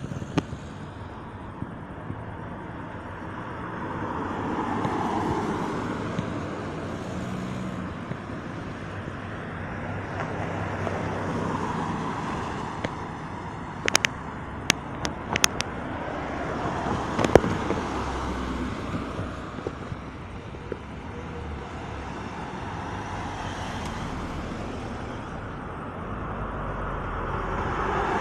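Cars passing one after another on a city street, each a slow swell of tyre and engine noise that rises and fades, several in all. A few sharp clicks about halfway through.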